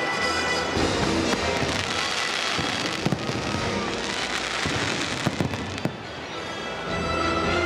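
Fireworks going off in repeated sharp bangs, several of them a second or so apart, over the fireworks show's music played through loudspeakers.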